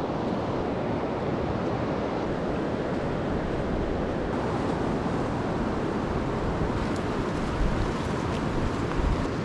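A river rushing steadily, with low wind rumble on the microphone.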